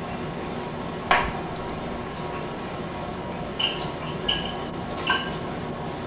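Dishes clattering in a dishwasher rack as a puppy pulls them out with its mouth. There is one loud knock about a second in, then three ringing clinks, each less than a second apart, in the second half.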